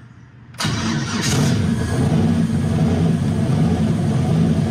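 Freshly built turbocharged 5.3 L LS V8 catching about half a second in on a start attempt, then running steadily at a fast idle of about 1,200 rpm.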